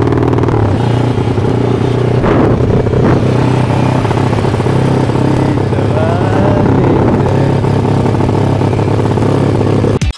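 Motorcycle engine running at a steady pace while riding, with road and wind noise; it cuts off abruptly at the end.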